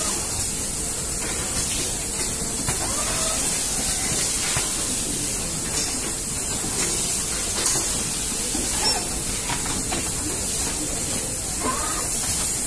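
Steady hiss from an automated screw-tightening machine at work, with a few faint short rising whines and light ticks from its moving parts.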